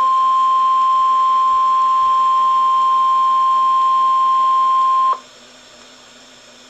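NOAA Weather Radio 1050 Hz warning alarm tone, a single steady high beep signalling that a Tornado Warning follows; it cuts off suddenly about five seconds in, leaving faint radio hiss.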